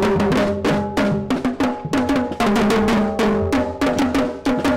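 Parade marching band drums beating a rapid snare cadence with bass drum, under a melody of held and stepping notes.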